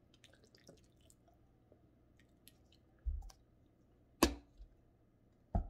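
Handling of a plastic vinegar bottle at a table: a dull knock about three seconds in, a sharp click about a second later, and another knock near the end, with faint small clicks between.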